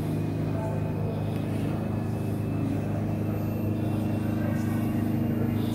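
A steady low hum made of several held tones, unchanging throughout, under a faint background hiss.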